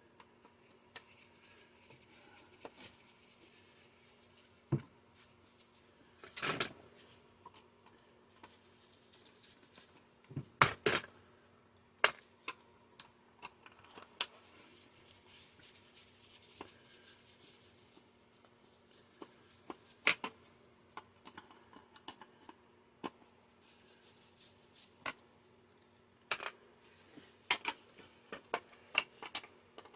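Screwdriver and small metal parts being handled while unscrewing a microwave's circuit board: scattered sharp clicks, taps and clinks, a few louder strikes among them, over a faint steady hum.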